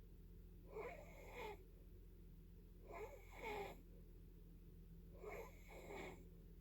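Faint snoring: three breaths about two seconds apart, each heard as two short rasps.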